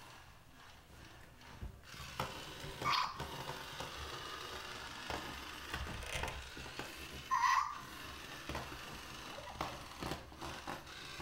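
Two short, high squeaks, about three seconds and seven and a half seconds in, with light clicks and taps on tile floor between them.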